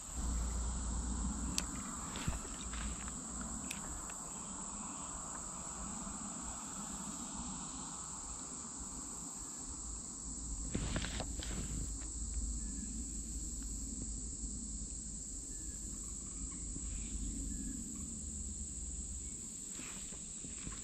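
A steady, high-pitched chorus of summer insects shrilling without a break. Under it runs a low rumble, with a few short clicks, the clearest about halfway through.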